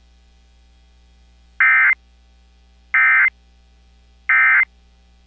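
Emergency Alert System End of Message (EOM) tones: three short bursts of digital data screech, evenly spaced about a second and a third apart, signalling the end of the AMBER Alert broadcast.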